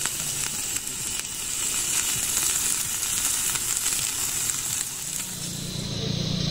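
Beef cubes frying on a hot ridged grill pan, sizzling steadily with small crackles. A low hum joins about five seconds in, with the sizzle still going.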